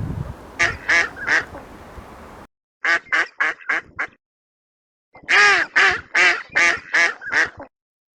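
Duck quacking in three quick runs of short calls: three, then five, then six louder ones, with silent breaks between the runs.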